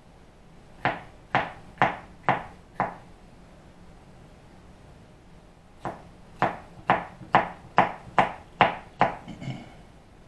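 Knife chopping vegetables on a cutting board: sharp knocks about two a second, five in a row, then after a pause a second run of about nine.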